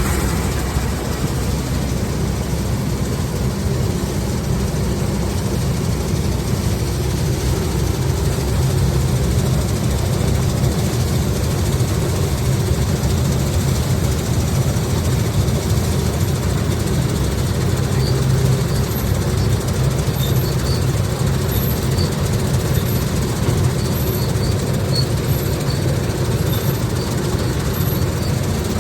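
A heavy engine running steadily with a low, even hum. Faint short high chirps repeat about once a second in the second half.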